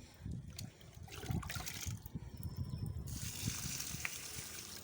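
Water being poured onto the soil of a potted plant: light knocks and rustles at first, then a steady pouring about three seconds in.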